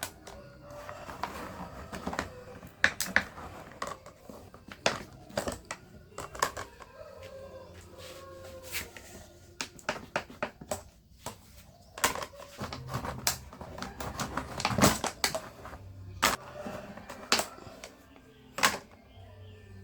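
Irregular clicks and knocks, several loud, of tools and metal fan parts being handled and knocked together.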